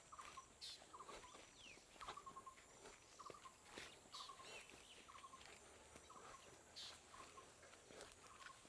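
Near silence with a faint, short animal call repeating about once a second.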